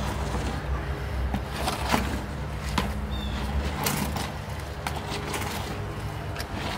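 A hoe scraping and knocking through wet bagged concrete mix in a plastic tub, working dry mix up from the bottom: irregular scrapes and clunks. A low, steady hum runs underneath.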